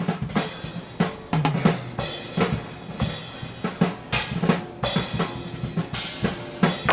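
Music with a busy drum kit, kick, snare and rimshots, playing a steady beat over a bass line.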